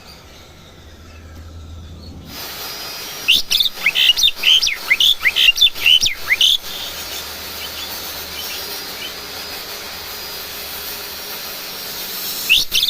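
Pied starling (jalak suren) singing: after a quiet start, a quick run of short whistled chirps rising and falling in pitch, lasting about three seconds, then fainter notes, and a new run of chirps near the end. It is a young pet bird practising its song.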